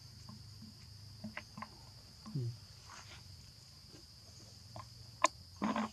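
Steady high chirring of crickets or other insects, with scattered light clicks and rustles and one sharp click about five seconds in.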